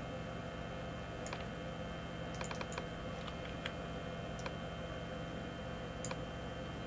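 Scattered clicks of a computer mouse and keyboard, single and in small clusters, over a steady low hum.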